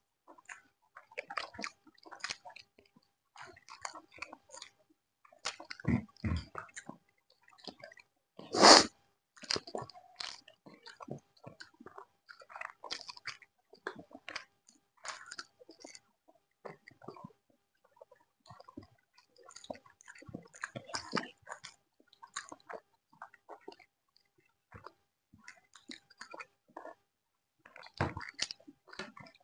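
People chewing and eating chicken curry with lemon rice (pulihora) close to the microphone: a steady run of short, irregular chewing and mouth sounds. One loud thump comes about nine seconds in.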